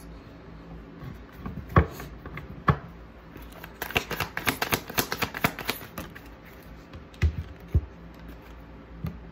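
Tarot deck being shuffled by hand: a few single card clicks, then a quick run of card flicks about four seconds in lasting about two seconds, and a few more single taps near the end.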